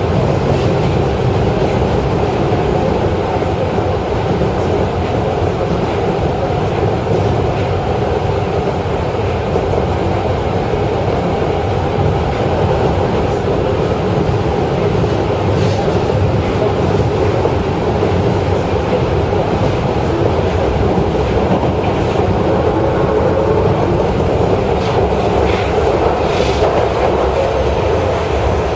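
Osaka Municipal Subway Midosuji Line 21 series train running between stations in the tunnel, heard from inside the car: a steady rumble of wheels on rail, with a few faint clicks in the second half.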